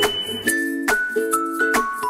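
Background music: light instrumental with chiming notes over a steady beat of sharp clicks.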